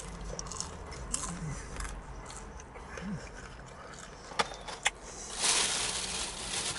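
A man chewing a bite of crisp fried whiting, with soft mouth clicks and a few short hums, over a steady low hum. Two sharp clicks come a little past halfway, then the paper takeaway box rustles for about a second near the end.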